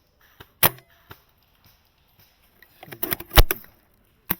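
Airsoft sniper rifle: sharp snaps of shots and metallic clicks of the rifle's action. One snap comes just over half a second in, a quick cluster of clicks and clacks about three seconds in with the loudest near three and a half seconds, and another snap near the end.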